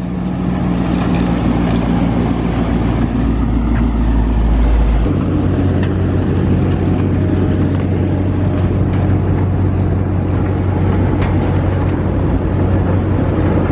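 Motor vehicle running with a steady low hum and road noise, its sound changing abruptly about five seconds in.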